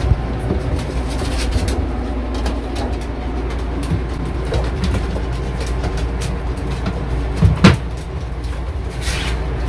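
Steady low background rumble with scattered light clicks, and a sharper knock about seven and a half seconds in as a wooden wardrobe door is pushed shut.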